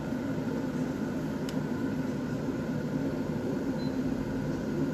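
Kettle heating on the stovetop: a steady noise of water coming up to the boil, with a constant low hum underneath.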